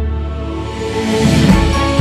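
Background music: a quieter stretch without the beat, which comes back about one and a half seconds in.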